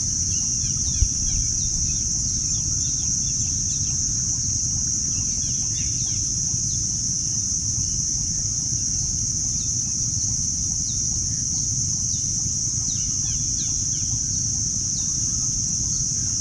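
Outdoor nature ambience: many small birds chirping in short, quick falling calls over a steady high-pitched hum and a low rumble. A single sharp click about a second in.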